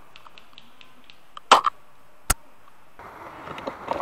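Sporadic airsoft gunfire: a snap about one and a half seconds in and a sharper, very short crack just after two seconds, with the noise of the game building near the end.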